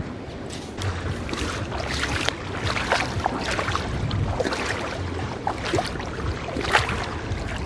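Wind buffeting the microphone by the sea, with water splashing and crackling.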